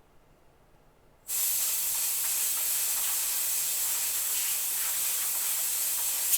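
A steady jet of air hissing from a nozzle aimed at the circuit board, starting abruptly about a second in and cutting off sharply at the end.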